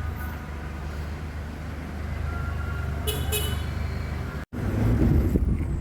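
Steady low rumble of a car driving, heard from inside, with a brief high-pitched tone about three seconds in. The sound cuts out for an instant at about four and a half seconds, then comes back louder and rougher.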